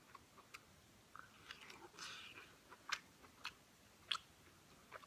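Faint close-up chewing and mouth clicks as a person eats shellfish meat, with a few sharper smacks in the second half.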